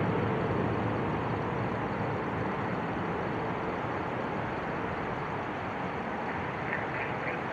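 Jet airliner engine noise, a broad steady rush that fades slowly. Near the end, a quick run of high chirps begins.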